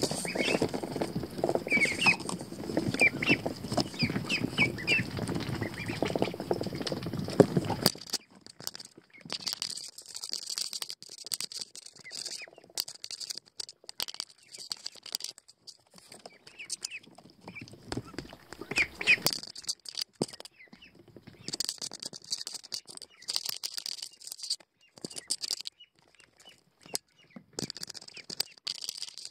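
Pekin ducklings peeping while they shuffle and scratch in wood-shaving bedding and brush against the microphone. The rustling is loud for the first eight seconds, then thins to scattered scratches with a few more peeps.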